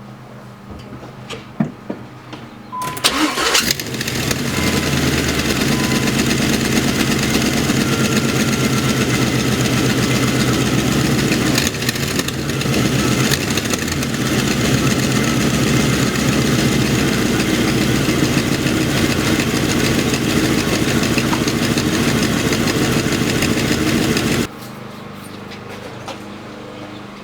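Chevrolet LT1 5.7-litre V8 with long-tube headers cranked and started about three seconds in, then running steadily before shutting off near the end. It runs with a knocking tick from the driver's side, which turned out to be an exhaust leak at the rear port of the driver's side header.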